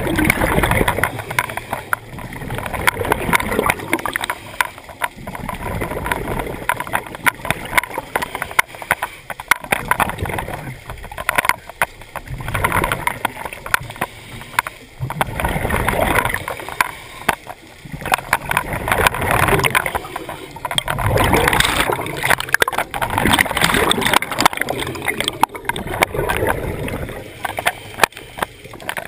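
Scuba diver breathing through a regulator underwater, heard through the camera housing: a bubbling exhale swells and fades every few seconds.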